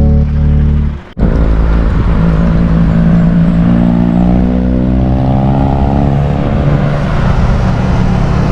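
A motor vehicle's engine going by, its pitch rising and then falling away, over steady low wind rumble on the microphone. Music cuts off about a second in, just before it.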